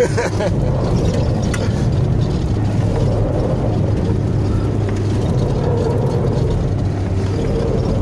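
Mitsubishi Pajero Sport driving, heard from inside the cabin: a steady low engine hum with road noise from the tyres on paving.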